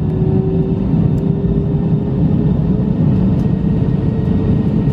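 Airbus A319 engine noise heard inside the passenger cabin: a steady, loud low rumble with a thin engine whine that rises slightly in pitch over the first couple of seconds.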